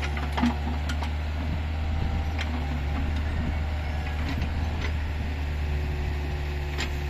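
Mitsubishi mini excavator's diesel engine running steadily with a low drone, with a few short knocks over it.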